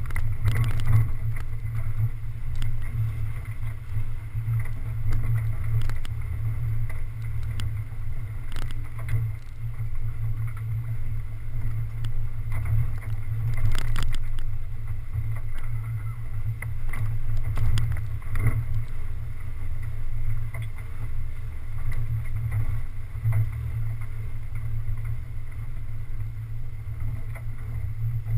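An off-road 4x4 driving over a rough dirt trail: a steady low engine and drivetrain rumble, heard through a bonnet-mounted camera, with a few sharp knocks as the vehicle jolts over the bumps.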